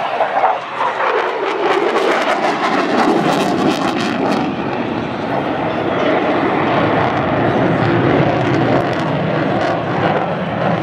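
An aircraft passing low overhead at an airshow display. Its engine note falls in pitch over the first three seconds as it goes by, then continues as steady, loud engine noise.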